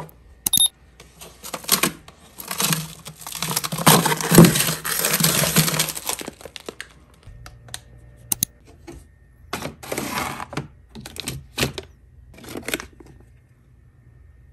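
Plastic packaging of frozen food crinkling and rustling as it is handled, loudest and longest in the first half, followed by shorter rustles and a few sharp clicks and knocks.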